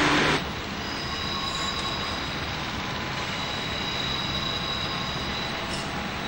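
Yellow NS 'snout' electric multiple unit running past close by, its loud rush cut off sharply about half a second in. Then a quieter, steady rumble of an NS electric locomotive and double-deck push-pull train approaching from a distance, with a faint high squeal over it.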